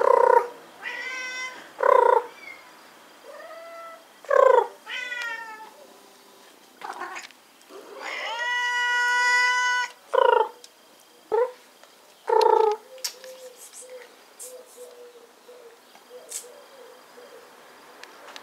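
Domestic cats meowing over and over, about ten meows in quick succession, with one long meow held at a steady pitch for about two seconds around the middle.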